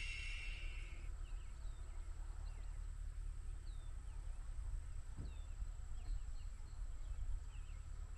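Small birds chirping in short, scattered high calls over a steady low rumble, with a dense high buzz fading out about a second in.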